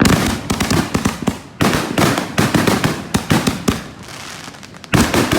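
Fireworks going off in rapid volleys of sharp bangs and crackles, dense at first, with a brief lull before a loud bang near the end.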